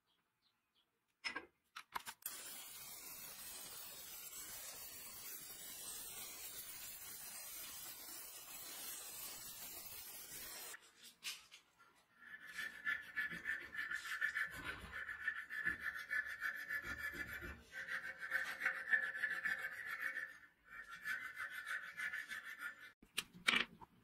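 A steady hiss for about the first ten seconds. Then a needle file cuts a slot in the end of a brass knife handle: repeated rasping strokes with a ringing squeal, with a short pause near the end.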